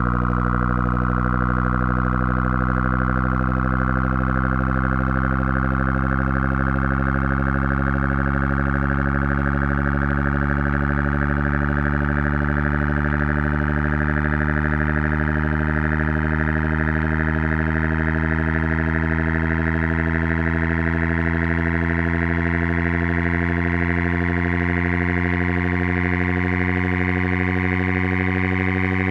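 Synthesized buzzy test tone at a steady loudness, gliding slowly and evenly upward in pitch: a frequency sweep from a hearing test.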